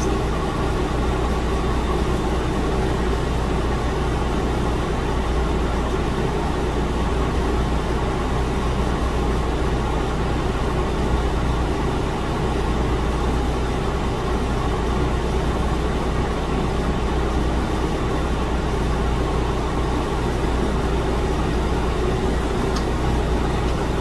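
Steady low hum of room air conditioning running, with no other events.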